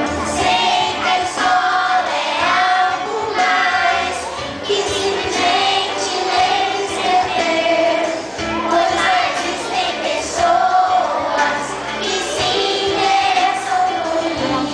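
Children singing a song with musical accompaniment, held notes wavering in pitch.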